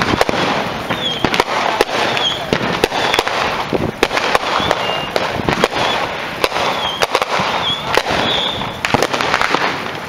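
Aerial fireworks bursting overhead: an irregular run of sharp bangs and crackles with no let-up.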